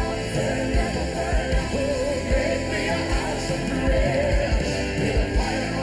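Live gospel worship band playing, with a kick drum beating steadily under the band and voices singing between lines of the song.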